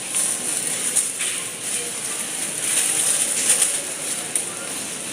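Dry rattling and clicking of a grocery package being handled, with a few sharp clicks, over a steady high hiss.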